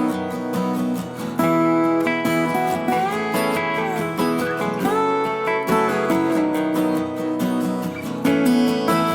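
Background music led by strummed acoustic guitar, with notes sliding in pitch.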